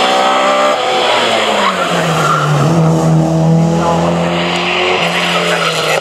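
Race car engine running hard through a tight bend. Its pitch falls about two seconds in as the car slows, then holds steady while the car slides round sideways with its tyres skidding.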